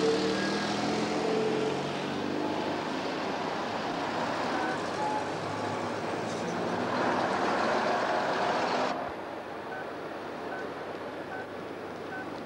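Road traffic on a city street: vehicle engines and tyre noise, loud at first, then dropping sharply about nine seconds in to a quieter hum. Faint, evenly spaced short beeps run under the quieter part.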